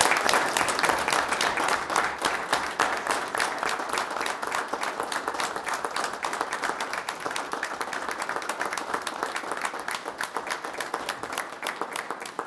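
Audience applauding, loudest at first and slowly thinning out.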